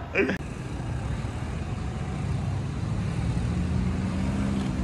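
Steady low rumble of city road traffic, with a faint steady engine hum, starting after a brief snatch of a man's voice at the very beginning.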